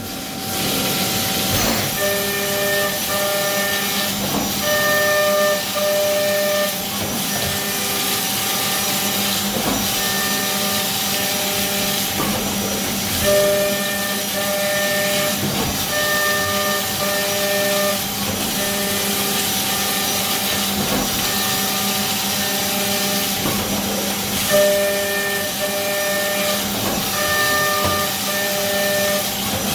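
CNC mill machining parts on a 4th-axis rotary setup: the spindle hums steadily under a constant hiss, while high-pitched cutting tones come and go as the cutter engages and leaves the work, in a cycle that repeats about every 11 seconds.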